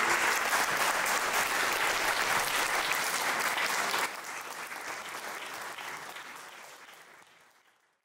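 Audience of schoolchildren applauding: dense, steady clapping that drops suddenly in level about four seconds in, then fades away.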